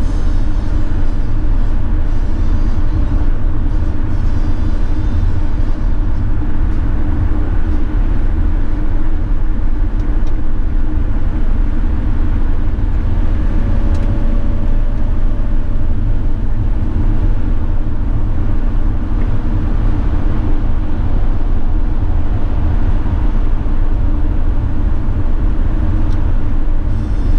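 Steady drone inside the cab of a 2016 Mercedes-Benz Sprinter 519 CDI minibus cruising at motorway speed: V6 diesel engine hum mixed with road and wind noise, a constant low rumble.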